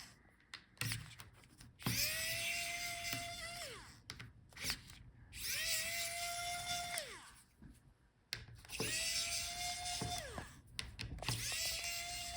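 Electric screwdriver backing out laptop hinge screws in four short runs. Each run is a steady whine that drops in pitch as the motor stops, with small clicks of the bit and screws in between.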